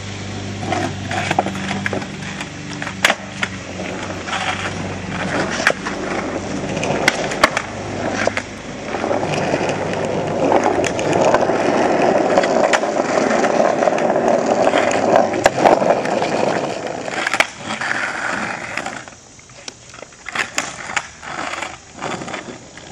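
Skateboard wheels rolling over rough asphalt, with sharp knocks and clacks as the board strikes the ground. The rolling is loudest in the middle and quietens near the end.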